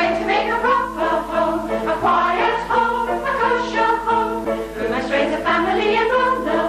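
An ensemble of amateur voices singing a musical-theatre chorus number together over sustained accompaniment.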